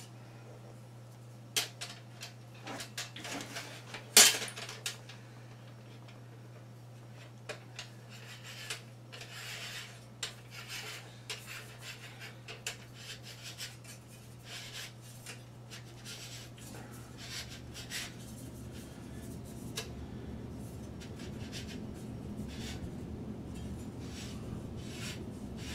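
A telescope accessory tray being handled and screwed onto a tripod's leg brace: scattered rubbing, scraping and small clicks, with one sharp knock about four seconds in. A steady low hum runs underneath, and a low rumbling scrape builds in the second half.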